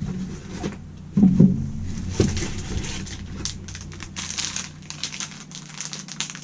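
Packaging being handled and unwrapped, crinkling and rustling with many small crackles, after a short louder sound about a second in.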